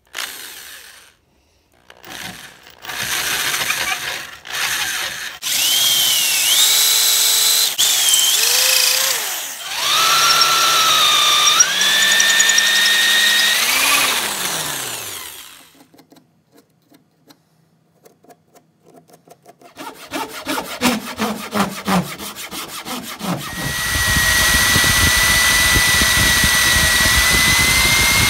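Electric drill turning a tenon cutter onto the end of a branch, in several bursts whose motor whine dips in pitch as the cutter bites and recovers as it eases off. Later a rattling stretch, then a steady run of the drill under load.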